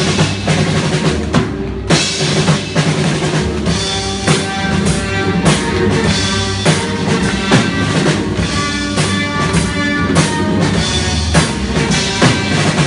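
A drum kit played live in a steady beat, with kick drum and snare hits, over music with sustained pitched notes.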